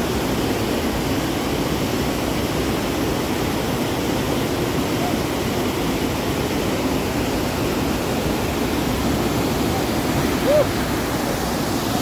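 Whitewater creek rushing down a rocky cascade: a steady, even rush of fast water. A brief short pitched sound rises over it about ten and a half seconds in.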